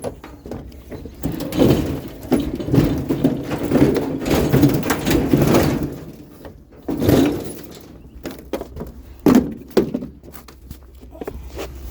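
Irregular knocking, rattling and scraping of hard objects being handled and worked loose, with a few separate sharp thumps in the second half.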